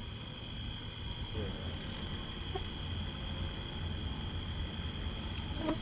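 Night insect chorus of crickets: a steady, continuous high-pitched trilling of several even tones, over a low hum.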